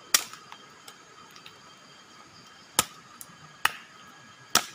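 Heavy drops of water falling from the rain-soaked canopy and hitting close by: four sharp taps, irregularly spaced about a second apart. Behind them is a faint steady hiss and a steady high chirring of night insects.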